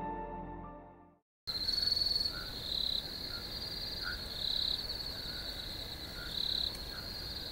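Night-time crickets chirping: a steady high trill with louder pulses every couple of seconds, starting about a second and a half in after soft ambient music fades out.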